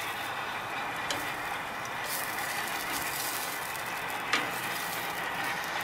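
Zucchini slices sizzling on a hot gas grill, a steady hiss. Metal tongs click against the grate or bowl twice: faintly about a second in and more sharply near the end.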